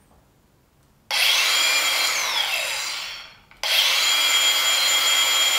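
Hikoki G3613DE 36-volt brushless cordless angle grinder switched on twice, running free. Each time it winds up through its soft start to a steady high whine. The first run is stopped by the motor brake, its pitch falling away within about a second. The second run starts just past the middle and keeps running.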